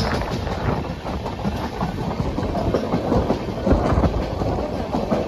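Moving passenger train heard from on board the 12618 Mangla Lakshadweep SF Express: a steady rumble of the wheels running over the rails, with the rattle of the coach.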